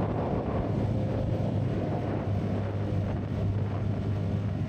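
CFMoto 250NK's single-cylinder engine running steadily at cruising speed, mixed with heavy wind rush on the action camera's built-in microphone and tyre hiss on the wet road.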